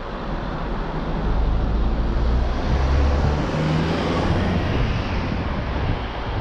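A van's engine droning as it passes close by, over wind rushing on the microphone. The drone swells in the middle and eases toward the end.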